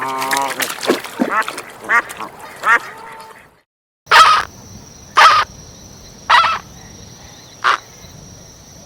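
Ducks quacking in several short calls, then after a brief silent cut a domestic cat meowing four times, about a second apart, over a faint steady high hum.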